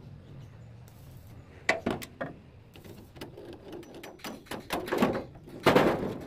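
Metal clinks and knocks from hands working at a small petrol engine's belt pulley and a red fan, with a louder, longer clatter near the end.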